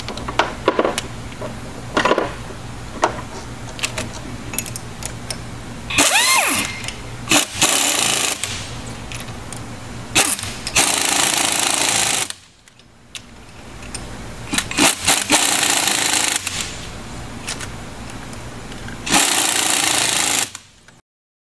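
Pneumatic impact wrench hammering the bolts of an inboard boat's prop-shaft coupler tight. It runs in several short bursts, the longest about a second and a half, with clicks and knocks of the gun and wrench in between.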